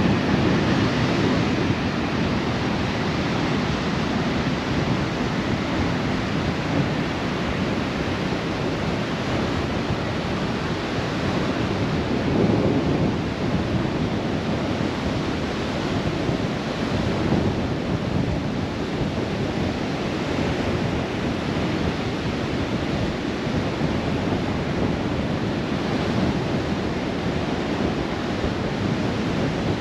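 Steady noise of wind and breaking surf on a sandy beach, with wind rushing over the microphone, swelling a little now and then.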